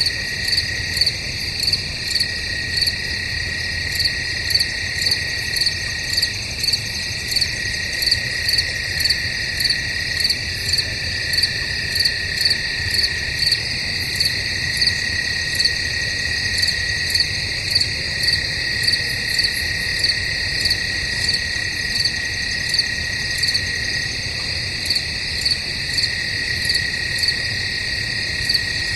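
Crickets chirping in woods at night: a continuous high trill, with a louder chirp repeating about twice a second over it.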